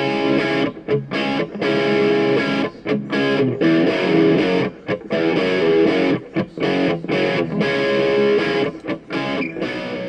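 Background music: distorted electric guitar playing chords in a choppy rhythm, with short breaks between phrases.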